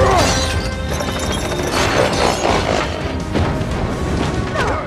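Action-film soundtrack: dramatic score music mixed with crash and impact sound effects, with sharp hits about two seconds in and again later.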